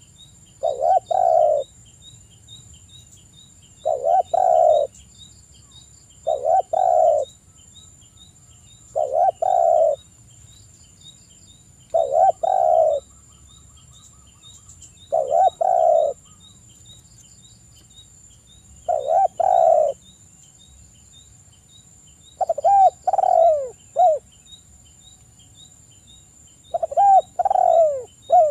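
Spotted dove cooing: nine short phrases of two or three notes, about one every three seconds. The last two phrases end in falling notes.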